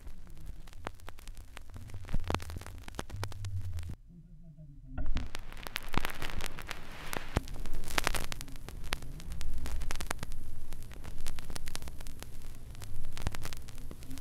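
Vinyl record surface noise from the stylus in the silent grooves between tracks: crackle, hiss and scattered pops over a low rumble. It drops almost to nothing for about a second around four seconds in, comes back with a sharp click, then carries on louder, with crackle and pops swelling about every two seconds.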